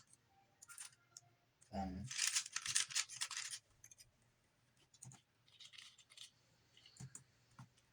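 Plastic Rubik's cube layers being turned by hand: a quick run of clicking, scraping turns about two seconds in, then a few scattered clicks and short turns.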